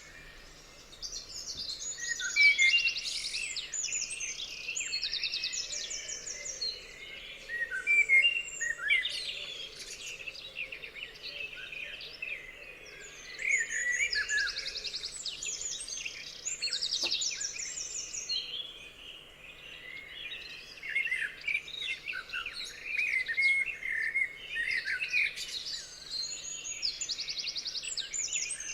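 A chorus of several songbirds singing at once: overlapping whistled notes and repeated fast trills, continuous throughout.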